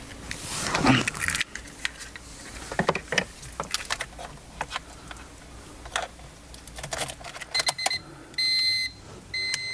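Scattered light clicks and rattles of handling, then, about eight seconds in, a car's electronic warning chime starts beeping steadily about once a second.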